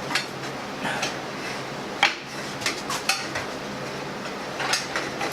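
Irregular metallic clinks and knocks of tools and metal parts being handled on a band saw, the sharpest knock about two seconds in, over a faint steady low hum.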